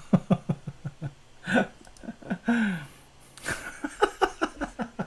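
A man laughing: scattered short, breathy chuckles that pick up into a quick run of laughs near the end.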